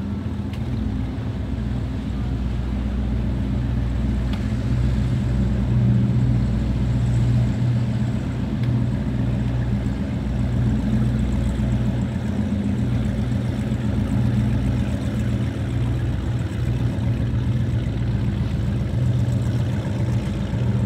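Motorboat engine running steadily with a deep, even hum.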